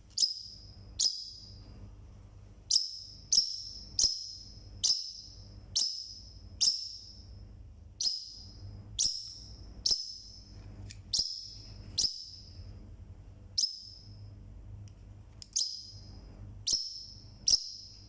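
Parrotlet (Forpus) calling loudly: a string of about twenty short, sharp, high chirps, each cut off quickly, roughly one a second with uneven gaps.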